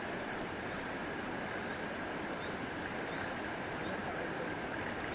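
River water flowing, a steady, even rush.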